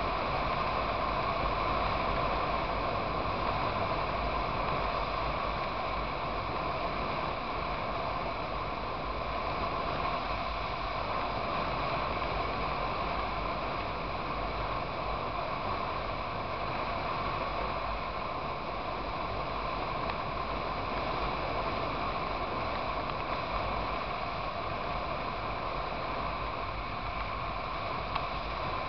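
Steady wind rush on the microphone of a motorcycle cruising at road speed, with the bike's engine and tyre noise running evenly beneath it.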